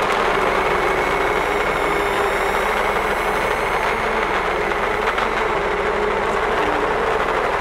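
Dense, steady noise drone from an experimental sound piece, with a held high tone and a lower hum inside it.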